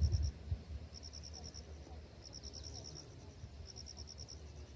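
An insect chirping in short trains of quick high pulses, one train about every second and a half. A low rumble, loudest in the first half second, lies under it.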